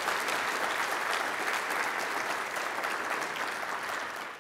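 Large audience applauding steadily, fading away near the end.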